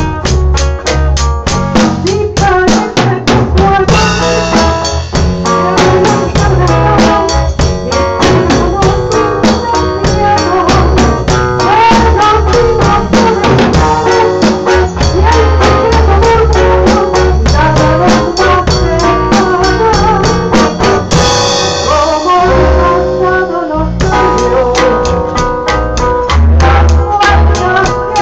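A live band playing loudly, with a drum kit keeping a steady beat under guitar and other instruments, recorded on a phone.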